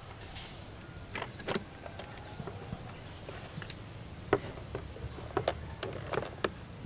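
Scattered plastic clicks and light knocks from an electric sandwich maker as bread buns are set on its plates and its lid is shut and pressed down. The sharpest click comes a little past the middle.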